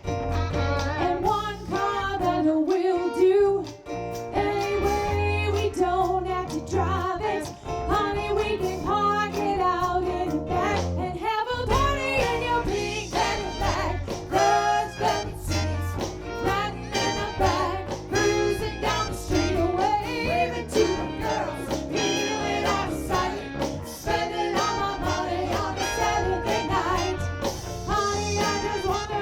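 Live soul and rock cover band playing a song, with singing over drums, bass, electric guitar and keyboard.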